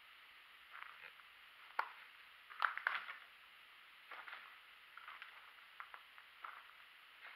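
Footsteps crunching on dry twigs and a loose wood-chip floor: irregular short crunches, the loudest cluster about three seconds in.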